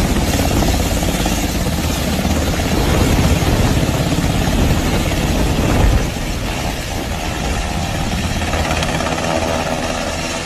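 US Navy H-60 Seahawk-type helicopter hovering close by, its rotor and turbine running loud and steady; the noise eases off about six seconds in as it lifts away from the rock.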